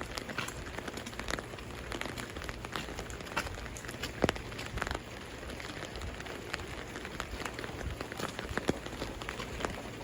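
Steady winter rain, with many individual drops tapping close by over an even hiss; one drop lands louder about four seconds in.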